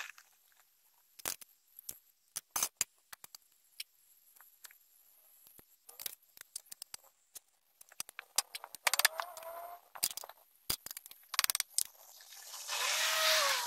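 Metal clicks and clinks of bolts and an Allen key as a rear sprocket is bolted onto a motorcycle wheel hub, with a longer squeaky scrape about nine seconds in and again near the end.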